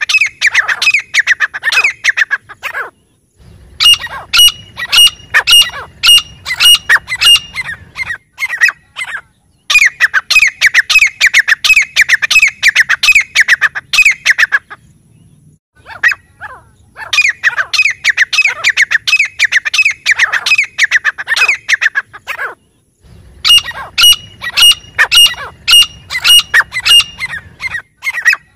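Grey francolins calling: about five loud phrases of fast, repeated harsh notes, each lasting a few seconds, with short pauses between them.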